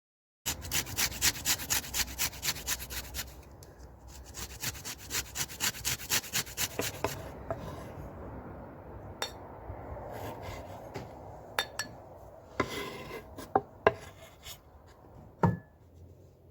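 Lemon being rubbed on a grater for zest: two runs of quick rasping strokes, about four a second. Then come scattered knocks and light clinks.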